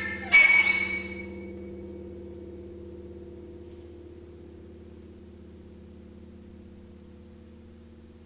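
A loud chord struck on a grand piano about half a second in, then left ringing, its few tones fading slowly over the following seconds.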